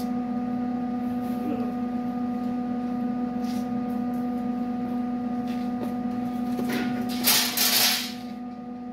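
A steady electrical hum. About seven seconds in, a brief, loud burst of hissing noise cuts in and stops.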